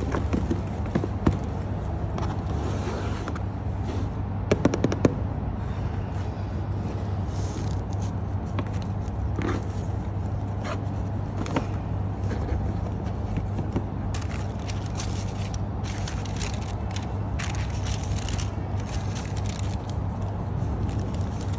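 Handling and unboxing noises: cardboard gift boxes and ribbon being scraped and tapped, with a quick cluster of sharp clicks about five seconds in, then denser papery rustling of tissue paper in the second half, over a steady low hum.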